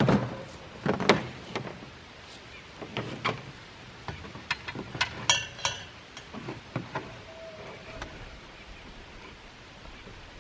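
Irregular knocks and clatter of objects being handled and set down, with a few ringing metallic clinks about five seconds in.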